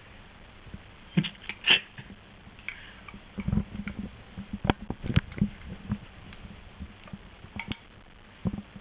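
Irregular smacking, clicking and soft knocking of a small child eating messily, with a cluster of low thumps in the middle.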